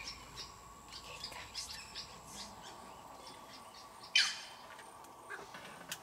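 Wild birds chirping and calling, a run of short high chirps followed by one louder, short call a little after four seconds in.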